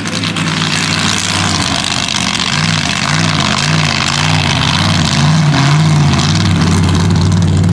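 Mega truck engine running hard close by, its pitch rising and falling several times as the driver works the throttle over the obstacle course. It gets louder as the truck comes past.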